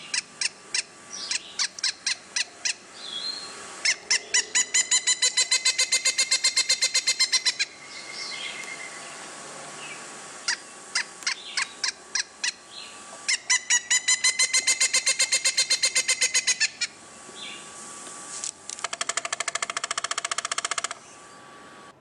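Pileated woodpecker calling: scattered loud single notes, then two long runs of rapid, evenly spaced ringing notes, about six a second and each about three seconds long. Near the end comes a faster, lower-pitched rattling run of about two seconds.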